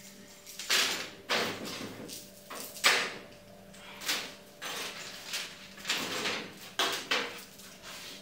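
Repeated short scraping and sliding noises, about a dozen irregular strokes, over a faint steady hum.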